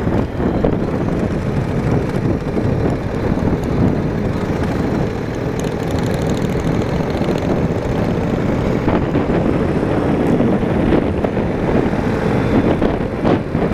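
Motorcycle engine running steadily while riding along, a continuous drone.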